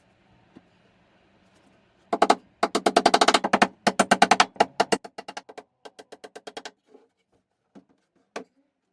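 A rapid, regular run of sharp mechanical clicks, about ten a second, from a workshop tool. It starts about two seconds in, thins out to spaced clicks by about seven seconds, and ends with a single click near the end.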